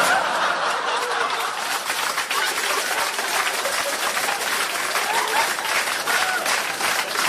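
Live audience applauding a joke, the clapping breaking out all at once and going on steadily, with some laughter at the start.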